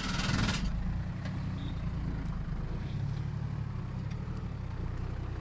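Toyota Land Cruiser HDJ80's 1HD-T 4.2-litre turbo-diesel straight-six running steadily at low revs as the truck crawls through deep ruts, with a brief rush of noise in the first half second.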